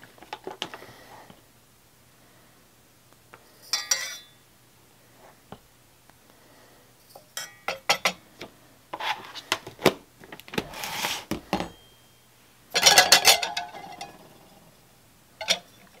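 Metal spoon scooping ground coffee from a coffee can and tapping it into a stainless-steel Stanley pour-over filter: scattered clinks and scrapes in several short spells.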